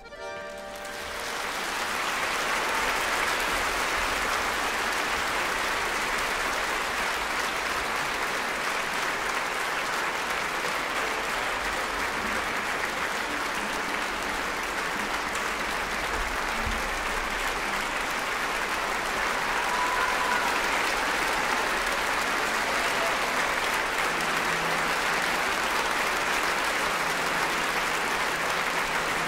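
Audience applauding, swelling over the first couple of seconds as the music stops and then holding steady.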